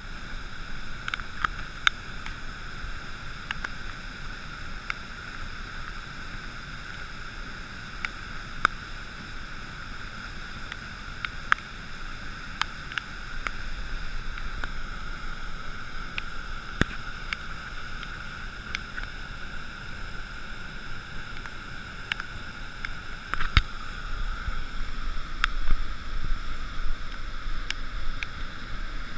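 Steady rushing of a flooded river pouring over a dam weir: a dense, even water noise. Sharp ticks are scattered irregularly through it.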